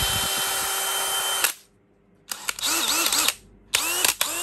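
DeWalt DCD996 20V brushless cordless hammer drill running free with no load. Its steady motor whine cuts off about a third of the way in. The trigger is then squeezed and eased so the pitch rises and falls, and after a short pause the drill runs back up to a steady full speed near the end.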